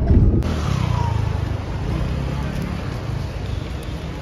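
Car engine and road traffic: a low rumble heard inside the car cabin, then, after an abrupt change about half a second in, a fainter engine rumble that fades out over the next couple of seconds under steady outdoor traffic noise.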